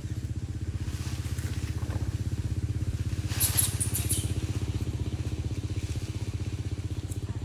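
An engine running steadily with a low, fast-pulsing drone. A short burst of high, scratchy sound comes about halfway through.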